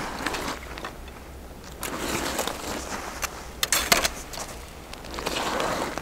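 An ice-fishing tip-up is lifted from the hole and laid on the ice, then hands work in the slush at the hole. Clothing rustles and slush scrapes in uneven swells, with a few sharp clicks and knocks about the middle.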